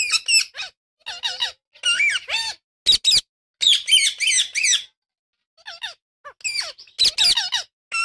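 Indian ringneck parakeets chattering: bursts of high, rapid chirping calls that sweep quickly up and down in pitch, coming in clusters under a second long with short pauses between.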